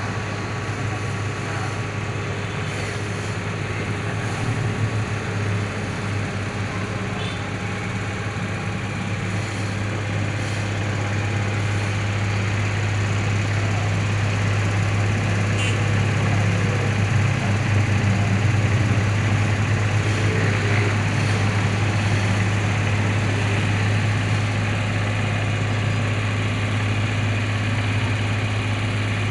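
Mini excavator's diesel engine running steadily with a low drone, getting a little louder about twelve seconds in.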